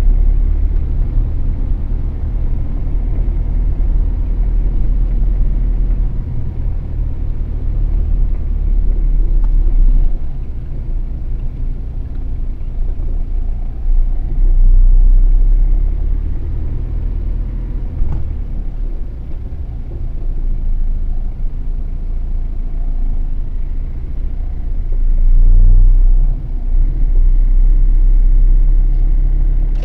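Vehicle driving on town streets: a continuous deep road-and-engine rumble that swells and eases several times.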